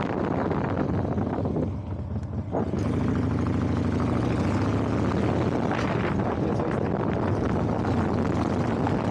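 Motor vehicle engine running, with road and wind noise. It drops briefly about two seconds in, then settles into a steady, stronger engine note.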